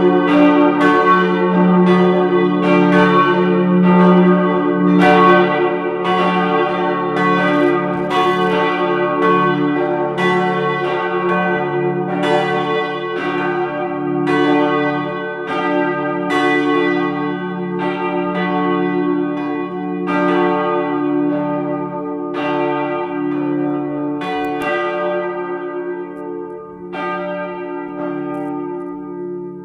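Full peal of four swinging church bells tuned d', f-sharp', a' and b', striking in an uneven, overlapping pattern over a sustained ringing hum. In the last few seconds the strokes come further apart and the sound grows quieter.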